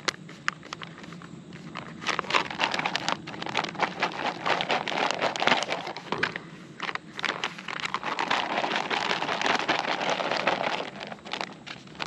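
Foil backpacking meal pouch (Peak Refuel) being handled, crinkling and rustling in two long stretches with many sharp crackles, as the pouch is filled with water, stirred and sealed.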